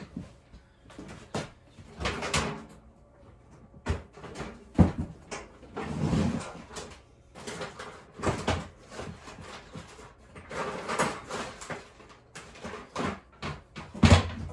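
Rummaging while searching for a pair of crimping pliers: drawers and cupboard doors opening and closing, with irregular knocks and clatter of things being moved, and a sharper knock near the end.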